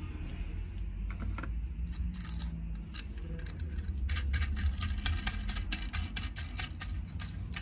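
Metallic clicking and rattling of a nut and sleeve being turned by hand on the threaded rod of an expanding-collet bearing puller seated in a gearbox bearing. The clicks are scattered at first and come thick and fast from about halfway through.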